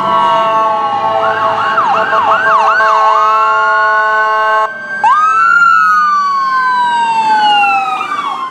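Fire apparatus and ambulance sirens on an emergency response. An air horn sounds one long steady blast that cuts off suddenly about five seconds in, over an electronic siren that switches from a fast yelp into a slow rising wail. After the horn stops, two sirens wail together at different pitches.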